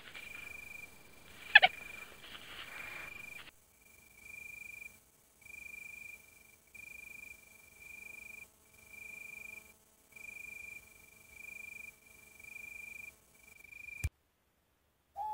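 A cricket trilling at a steady high pitch: unbroken at first, then after about three and a half seconds in repeated bursts of about a second with short gaps. A couple of sharp clicks come in the first two seconds and one near the end.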